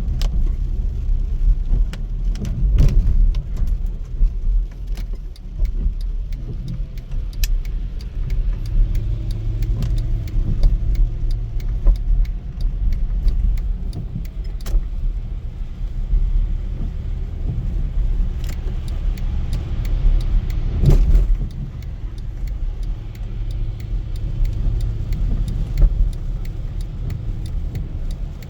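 Car driving in the rain on wet city roads: a steady low road rumble, with scattered light clicks and ticks throughout and a few louder knocks.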